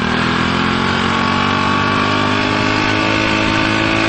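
An engine held at high revs with a steady, even pitch that creeps slowly upward.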